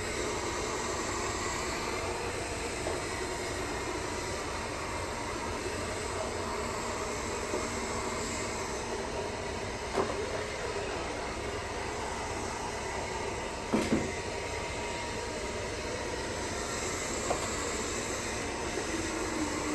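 Roomba robot vacuum running, with a steady hum and whir from its motor and brushes. There are two short knocks, about ten and fourteen seconds in.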